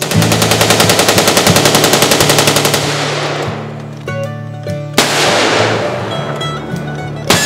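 A rapid string of rifle shots, about eight a second for nearly three seconds, from an AR-15 fired with a SlideFire bump-fire stock, then two single revolver shots about two seconds apart. Guitar music plays underneath.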